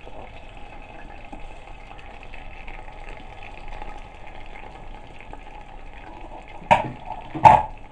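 Pot of soup steadily simmering and hissing on the fire, with two sharp knocks about a second apart near the end.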